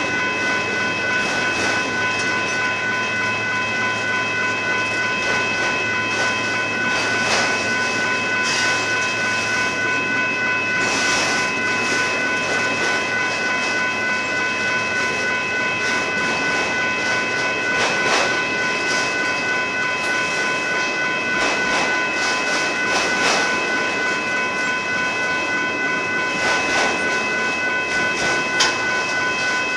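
Union Pacific autorack freight cars rolling past, their wheels clicking irregularly over the rail joints, with a steady high-pitched ringing tone above the rumble.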